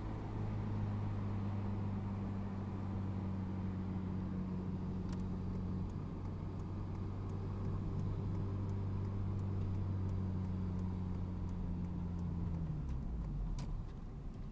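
Car cabin sound while driving: a steady low engine drone over tyre and road noise. The engine note drops near the end.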